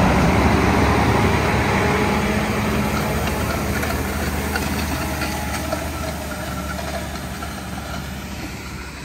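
DAF CF tipper lorry's diesel engine running as it creeps along spreading stone chippings onto fresh tar, with the hiss and patter of chippings pouring from its rear spreader. The engine fades steadily as the lorry moves away.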